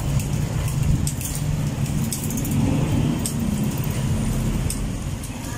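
Road bike drivetrain being spun by hand: the chain runs over the 8-speed rear sprockets and through the rear derailleur with a steady metallic whir and scattered clicks and rattles, as the derailleur is tested after adjustment.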